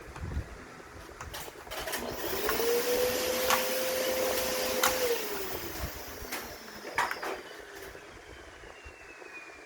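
A small electric motor whirring for about three seconds, spinning up, holding a steady pitch and winding down, with scattered clicks and knocks before and after.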